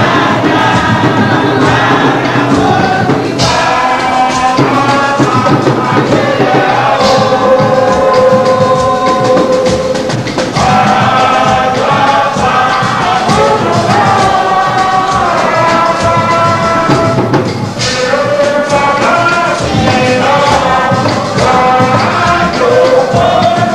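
A large group of worshippers singing a praise anthem together, with percussion keeping a steady beat underneath.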